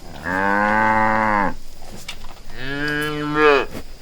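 Cow mooing twice: a long, even moo of about a second and a half, then a second moo that swells in the middle and dies away near the end.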